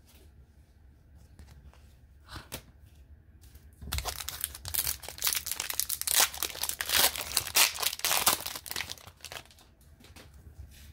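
Crinkling and tearing of plastic wrapping as trading cards are handled by hand: faint rustles at first, then a dense spell of crinkling from about four to nine seconds in, which then fades.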